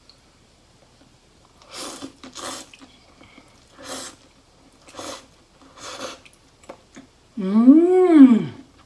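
Soba noodles slurped from a bowl of dipping soup in about five short sucking pulls. Near the end comes a long hummed "mmm" of enjoyment that rises and falls in pitch and is the loudest sound.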